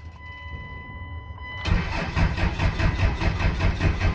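Starter cranking a 5.9 L 24-valve Cummins diesel in an even pulsing rhythm without it firing. The cranking stops briefly, leaving only a faint steady whine, then resumes about a second and a half in. It is driven by a single old battery that is running out of power.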